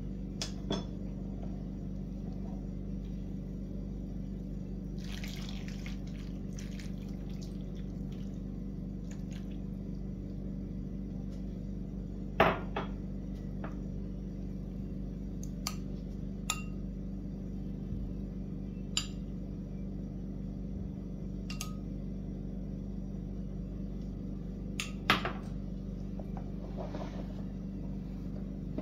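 A metal spoon ladling sauce from a glass cup over stuffed vegetables in a grill pan: scattered sharp clinks of spoon on glass and pan, two louder than the rest, with brief pouring and dripping sounds over a steady low hum.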